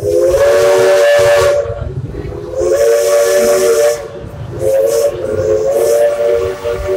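Steam locomotive Judy K's MD Southern three-chime whistle blowing a series of blasts as the train departs. The first blast lasts about a second and a half, and the next ones come a second or so apart. Steam hiss and a low rumble run underneath.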